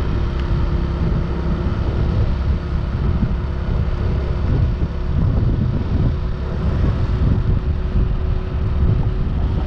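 Motorcycle riding at road speed: wind buffeting the microphone in a heavy, uneven rumble over the steady hum of the engine.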